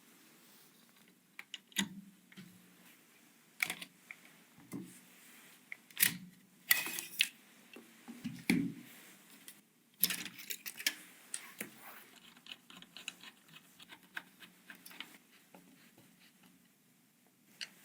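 Sharp plastic and metal clicks and taps of computer parts being handled and fitted during a PC build, coming irregularly. The loudest clicks come about six to seven seconds in, with a duller knock soon after and a run of small quick ticks from about ten seconds on.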